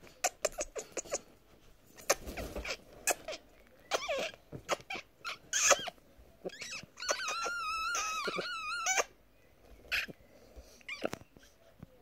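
Blue-and-gold macaw making a run of short clicks and scratches as it works its beak at cloth, then a wavering, warbling call lasting about two seconds, starting about seven seconds in, with a few more clicks after.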